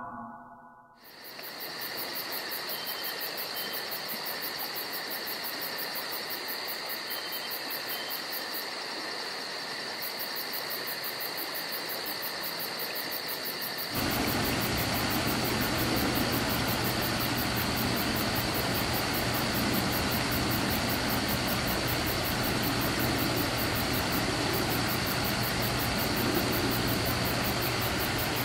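Steady insect chorus: a constant high chirring over a hiss. About halfway through a low steady hum comes in and the sound gets a little louder.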